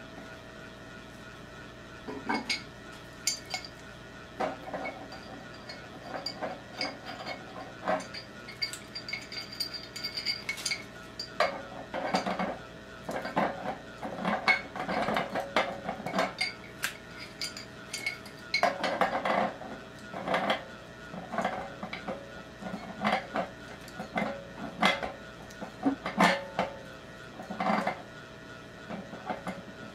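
Brass plumbing fittings and metal tools clinking and clattering irregularly as a ball valve and union are handled and fitted together on well pressure tank pipework. A faint steady hum runs underneath.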